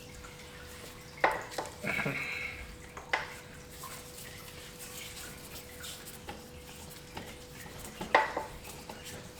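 Metal bicycle parts and tools being handled: three sharp metallic clinks with smaller ticks between them and a short squeak about two seconds in.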